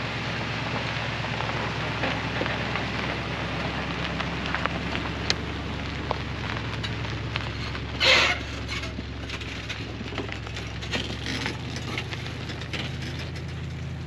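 Pickup truck engine idling with a steady low hum, under a scatter of light crackles and crunches, with one brief louder rustle about eight seconds in.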